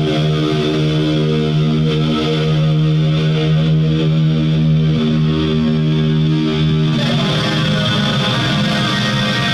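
Electric guitar played through effects with distortion: a chord rings on, held, and changes to a new chord about seven seconds in.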